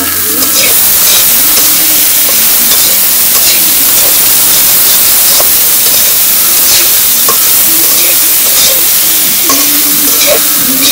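Vegetables sizzling in hot oil in a metal wok, with a steady frying hiss, while a metal spatula stirs them, scraping against the pan every second or so.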